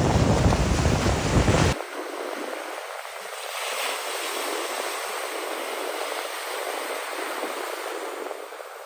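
Ocean surf washing in, a steady hiss of waves. For the first couple of seconds wind buffets the microphone with a heavy rumble, which cuts off suddenly, leaving only the softer hiss of the surf.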